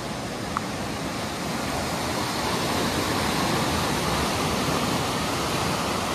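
A swollen, fast-flowing river rushing, a dense steady rush of water that grows louder over the first few seconds. A single short click about half a second in.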